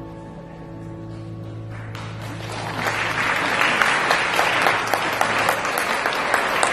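The last held low note of the piece dies away. About two seconds in, audience applause breaks out and swells, then keeps going steadily.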